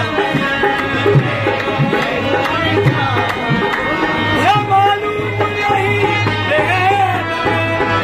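Qawwali music: two harmoniums holding sustained chords over a dholak hand drum beating a steady rhythm. From about halfway through, a man's voice sings a wavering line over it.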